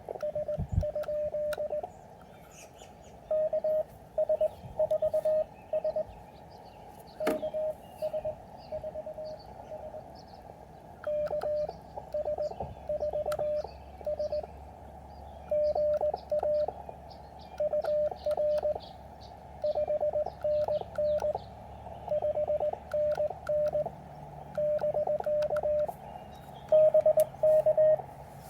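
Morse code (CW) from an Elecraft KX3 transceiver: one steady tone keyed on and off in dots and dashes, in runs of characters with short gaps, over the receiver's filtered hiss.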